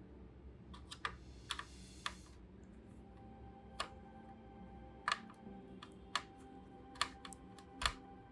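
Irregular sharp clicks and taps, about nine in all, with a short scraping hiss about a second and a half in, from plastic parts and tools being handled during repair work. Faint background music sits underneath.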